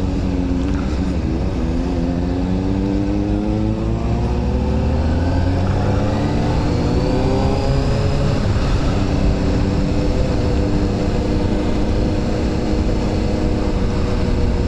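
Honda CBR motorcycle engine under way. It dips about a second in, then pulls up smoothly in pitch for several seconds and settles at a steady cruise, with a steady rush of wind and road noise.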